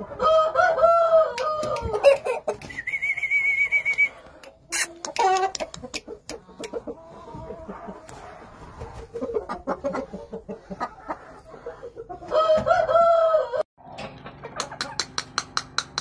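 Yamato gunkei rooster crowing twice: one crow of about two and a half seconds at the start and a shorter one about twelve seconds in, with clucks and short calls between.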